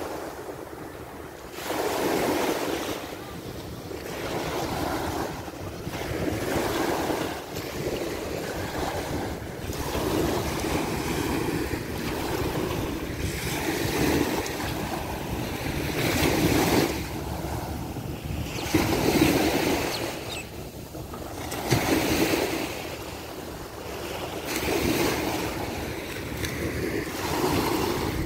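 Small waves breaking and washing up onto a sandy shore, the surf swelling and falling back every two to three seconds.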